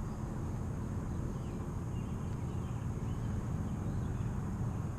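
Steady low outdoor rumble with a faint high steady tone above it, and no distinct events.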